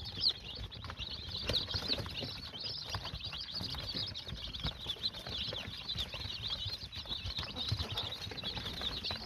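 A brood of young Australorp and Leghorn chicks cheeping continuously, many short high peeps overlapping one another, over low rustling and scratching.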